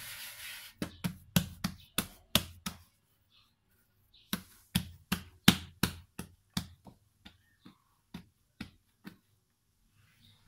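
Hands patting and slapping bread dough flat on a floured wooden board: a brief rub at the start, then a run of sharp pats about two or three a second, pausing around three seconds in and thinning out near the end.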